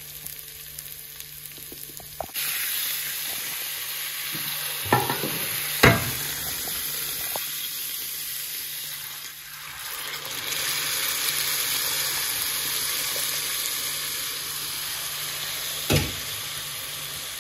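Meat broth poured into a hot pot of rice frying with spices and oil, setting off a sudden loud sizzle about two seconds in that carries on, dipping briefly near the middle before rising again. A few sharp knocks sound over the sizzle, two close together early on and one near the end.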